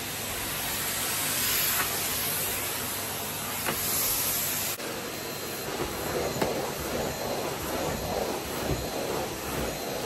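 Henry tub vacuum cleaner running, a steady hissing suction noise. It breaks off abruptly about five seconds in and comes back rougher and more uneven as the wand is worked over the carpet.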